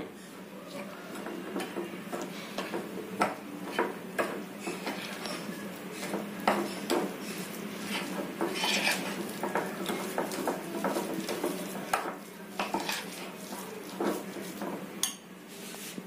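Metal spoon stirring and scraping a thick gram-flour, semolina and yogurt batter in a glass bowl, with irregular clinks of the spoon against the glass.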